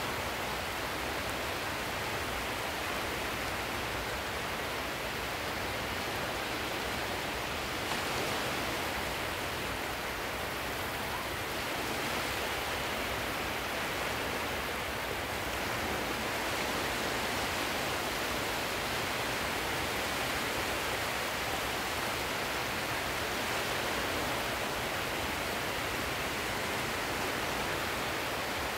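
Steady rushing of sea surf, swelling and easing gently now and then.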